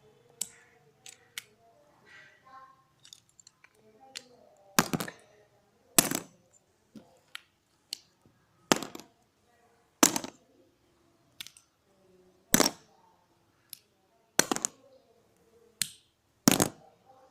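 Plastic Lego pieces clicking and snapping as they are handled, a run of sharp clicks at irregular intervals, about one a second.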